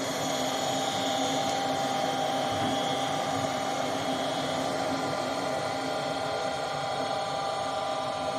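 Gas furnace's exhaust (draft inducer) fan running at full speed after spinning up, a steady motor whine with several held tones.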